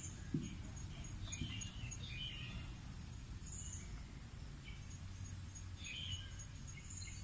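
Faint, short high-pitched chirps in a few small clusters, about a second in and again near the end, over a steady low rumble of background noise.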